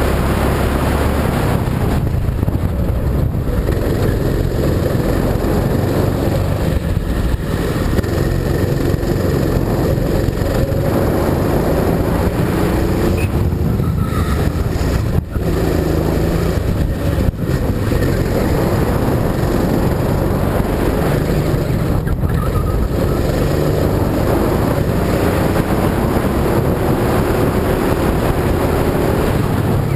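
Go-kart engine running hard, its pitch rising and falling again and again as the kart speeds up and slows. Brief dips in level come around the middle.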